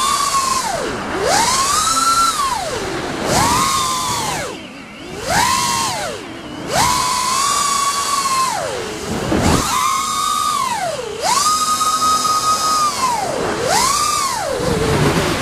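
FPV quadcopter's brushless motors (RCINPOWER GTS 2205 2350KV) with five-blade propellers whining as it flies. The pitch swings up and down every second or two as the throttle is pushed and eased off.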